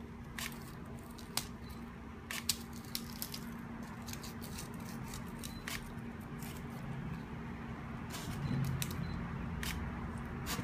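Kitchen scissors snipping away a king crab's gill filaments: irregular sharp snips and clicks of the blades on the shell, over a steady low hum.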